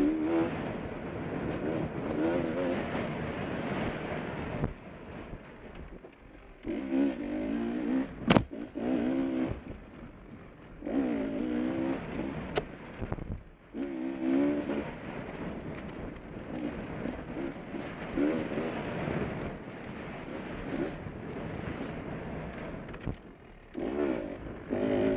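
Beta 250RR two-stroke dirt bike engine revving up and down as the throttle is opened and closed over and over, dropping back between bursts. Two sharp knocks cut in, at about 8 and 12.5 seconds in.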